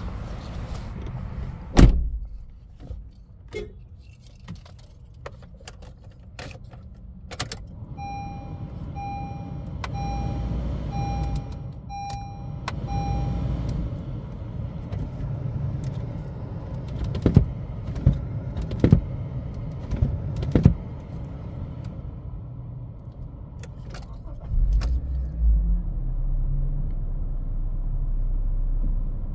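Handling sounds inside a 2021 Honda HR-V: sharp clicks and knocks, keys jangling, and a run of six evenly spaced electronic chimes, about one a second, starting some eight seconds in. Near the end a low rumble swells and settles into a steady low hum.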